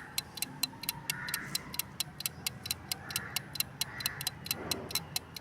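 Clock-style ticking sound effect used as a quiz countdown timer: fast, even ticks over a faint background bed.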